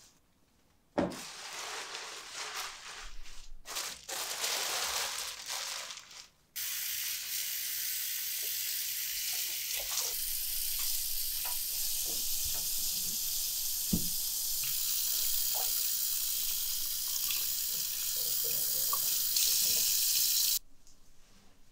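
Water running from a tap into a sink, first in short gushes, then a steady stream from about six seconds in that cuts off sharply near the end, with small knocks and clicks of things being rinsed under it.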